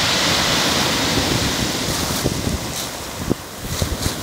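Waves breaking on a pebble beach and the backwash rattling through the small stones: a steady rushing hiss, strongest at first and easing off, with a few brief low thumps in the second half.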